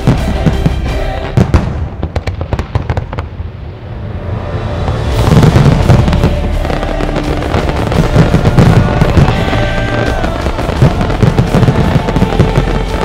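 Many aerial firework shells bursting in quick succession, a dense barrage of bangs and crackle typical of a show's finale, with music playing alongside. The bangs thin out briefly about two seconds in, then build into a louder, continuous barrage from about five seconds in.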